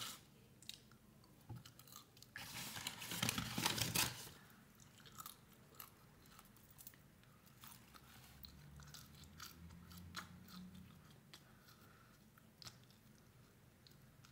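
A person chewing and biting food close to the microphone, with a burst of crunching a couple of seconds in, then quieter scattered mouth clicks.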